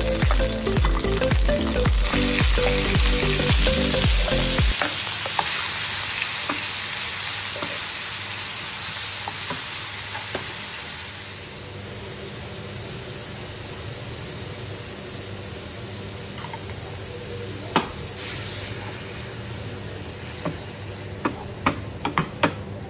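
Tofu pieces frying in hot oil in a nonstick pan, a steady sizzle that eases off partway through. Near the end a wooden spatula stirs and knocks against the pan a few times. Background music plays for the first few seconds.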